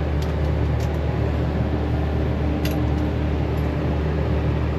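Steady low mechanical hum of running machinery, with a faint steady higher tone over it and a few light clicks.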